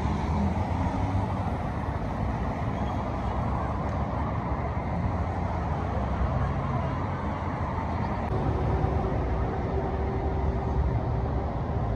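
Steady road traffic on a city street: vehicle engines and passing cars running continuously. A steady hum joins about eight seconds in.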